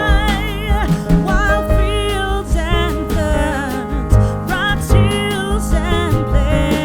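Background music: a song with a singing voice and band accompaniment over a steady beat.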